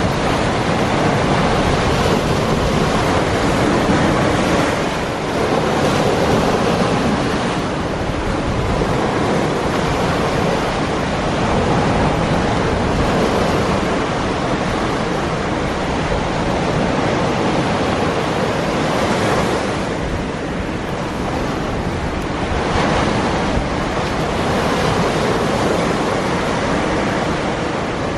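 Surf breaking and washing over rocks, a steady rush that swells and eases every few seconds, with wind buffeting the microphone.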